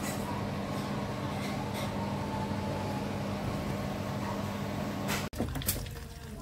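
A steady mechanical hum with a constant low tone that cuts off abruptly about five seconds in. After the cut, egg and minced meat begin sizzling faintly in a frying pan.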